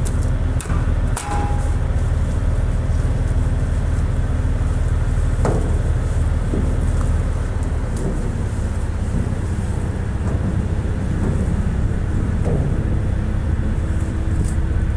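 Steady low drone of an inland tanker ship's diesel engine running.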